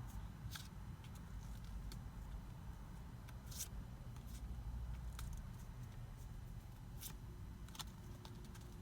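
Faint handling of a Pokémon trading card pack and its cards: a few scattered soft rustles and clicks over a low, steady room hum.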